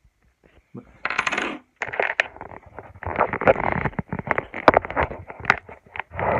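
Rapid, irregular clatter of sharp clicks and raspy scrapes from small hard objects being handled, starting about a second in and running on.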